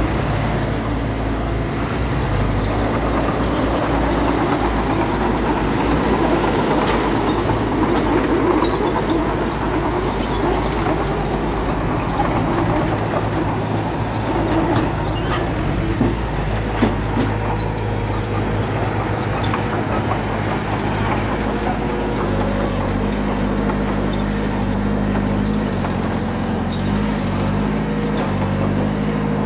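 Diesel engine of a small crawler bulldozer running under load, with a rough mechanical clatter and scattered clicks, and the engine note changing pitch about two-thirds of the way through.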